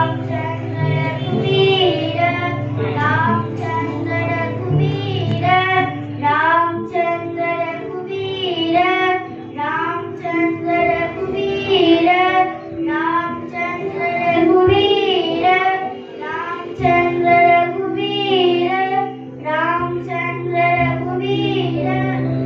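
A song with a voice singing a wavering melody over a steady instrumental backing.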